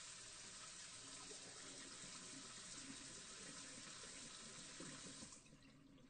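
Water sprayer spraying water in a steady hiss, with a fine spatter beneath it, cutting off about five seconds in.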